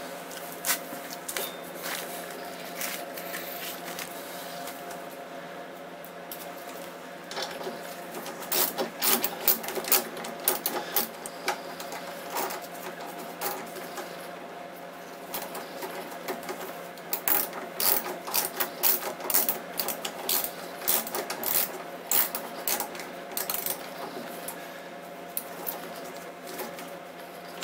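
Rapid runs of sharp metallic clicks from hand tools working on a scooter's front brake caliper as it is refitted. The clicks come in two longer runs, a third of the way in and again past the middle, over a faint steady hum.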